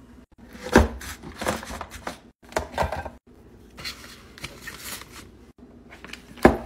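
Handling noise from packing an insulated lunch bag: sharp plastic knocks and clicks as a plastic bento box is closed, with fabric and packaging rustle as a drink bottle is tucked into the bag's mesh pocket. The loudest knocks come about a second in and near the end.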